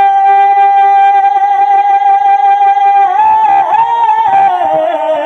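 A man's voice singing a naat through a microphone and PA system. He holds one long, high note steady for about three seconds, then breaks into a wavering run of ornamented notes.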